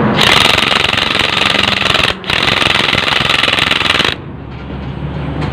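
Impact wrench hammering in two runs of about two seconds each, split by a brief break, and stopping about four seconds in. It is tightening the nut of a homemade puller to draw a needle bearing out of a motorcycle swingarm pivot.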